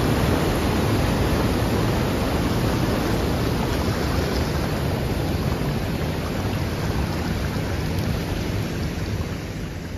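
River water rushing and churning as it spills over a low concrete weir, a steady loud wash of noise that grows slightly fainter near the end.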